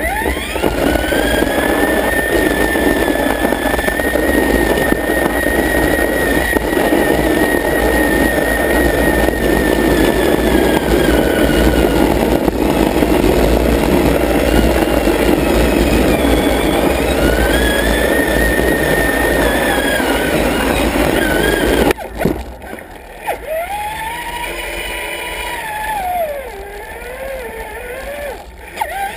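Traxxas Summit RC truck's electric motor and geartrain whining as it drives, the pitch rising to a steady high whine, falling away near the middle and rising again, over a loud rumble. About three-quarters of the way through it drops much quieter, to short whines that rise and fall as the throttle is worked.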